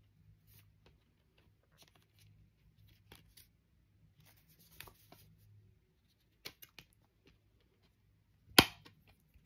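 A metal Steelbook disc case being handled and opened: scattered light clicks and taps, two sharper clicks about six and a half seconds in, and one loud sharp snap near the end.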